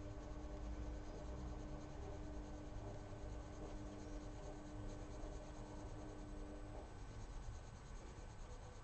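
Prismacolor coloured pencil scratching on paper in rapid, short shading strokes. A faint steady hum runs underneath and stops about seven seconds in.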